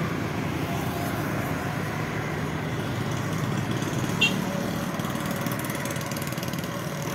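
Road traffic on a divided avenue: a steady hum of passing cars and motorcycles, with one short high-pitched chirp about four seconds in.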